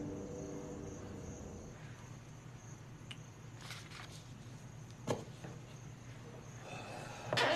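Background music fading out in the first second, then a quiet room tone with crickets chirring faintly and steadily. Paper is handled with soft rustles and a few clicks, and a sharper knock comes near the end.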